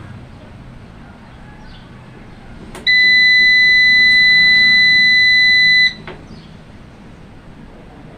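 Solar inverter's built-in buzzer sounding one loud, steady, high-pitched beep of about three seconds while its settings are being entered from the front-panel buttons.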